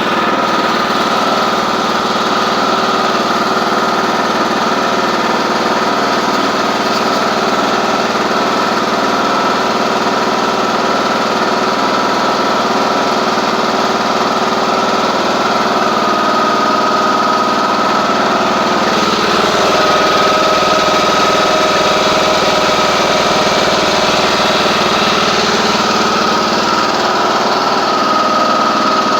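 John Deere D110 lawn tractor engine running steadily after a cold start, its note shifting slightly and getting a little louder about two-thirds of the way through. The owner questions a clicking noise in its running.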